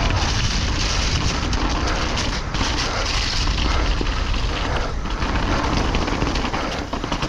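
Downhill mountain bike ridden fast over a muddy trail: a steady rush of wind and tyre noise with a constant rattle and knocking of the bike over bumps.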